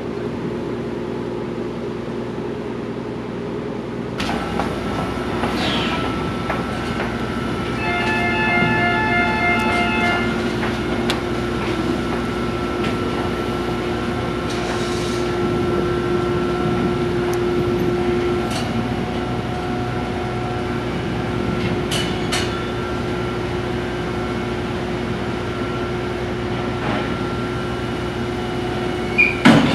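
Car ferry's engines and deck machinery running steadily as the ship berths, getting louder about four seconds in. A pulsing electronic warning tone sounds for about two seconds, and a few loud knocks come near the end.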